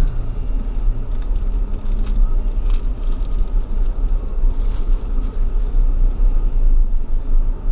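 Steady low rumble of a car on the move, with engine and road noise heard from inside the cabin.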